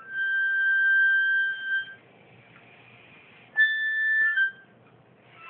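Whistled notes blown into hands cupped at the mouth: a long, pure, flute-like note held for nearly two seconds, then after a pause a shorter, slightly higher note.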